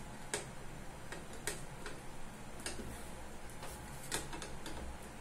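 Sparse, irregular clicks, about one a second, from a hand screwdriver driving screws to fasten the metal stand bracket onto the back of an all-in-one computer.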